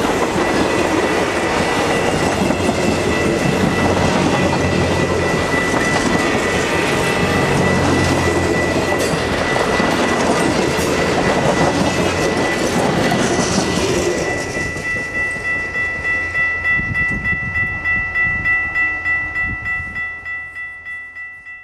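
Alaska Railroad Denali Star passenger cars rolling past with a steady rumble and wheel clatter. About two-thirds of the way through, the train noise falls away, leaving a bell ringing in quick regular strokes, about two a second, until it stops just before the end; this is typical of a grade-crossing bell.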